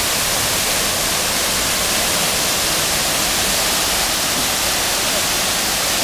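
Waterfall pouring down a rock cave front: a steady, even rush of falling water.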